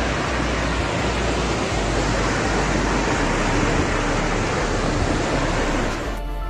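A loud, steady rushing noise with no clear pitch, cutting off suddenly about six seconds in.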